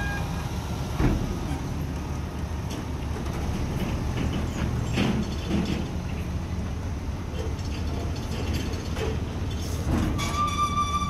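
Dump truck's engine running steadily while it unloads sand, with scattered metallic clanks and knocks about a second in, twice around five seconds in, and again near the end.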